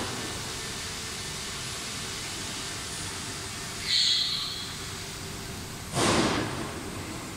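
Steady machine-room noise with a short, high electronic beep about four seconds in, then a brief burst of hiss about two seconds later.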